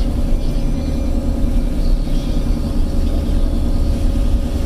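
Steady low rumble of a car driving along a road: engine, tyre and wind noise picked up by a camera mounted outside through the sunroof.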